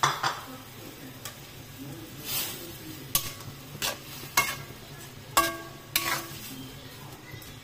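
Spatula stirring sliced bitter gourd and shrimp in a simmering metal wok: a series of knocks and scrapes against the pan, some ringing briefly, over a steady low sizzle.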